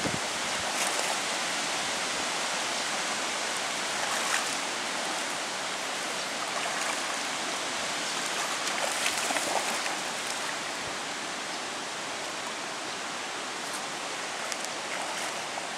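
Shallow river water running over a gravel bed: a steady rushing hiss, with a few brief louder moments.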